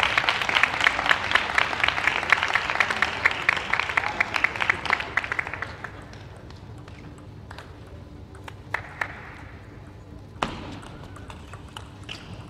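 Audience applauding a won point, the clapping dying away about six seconds in. Then a few sharp knocks of the table tennis ball on paddle and table as play resumes, with a rally near the end.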